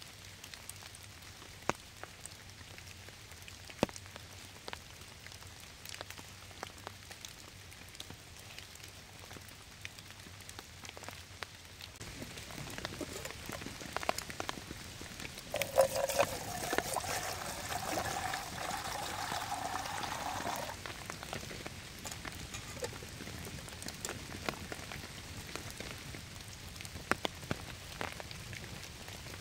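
Steady rain with many sharp ticks of drops and fire crackle. About halfway through, the hiss swells and a wavering whistling tone sounds for about five seconds.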